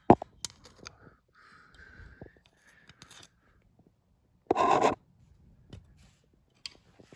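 Screwdriver clicking and scraping against metal inside an engine block as it pushes a connecting rod into line, with a sharp knock at the start and a loud half-second rasp about four and a half seconds in.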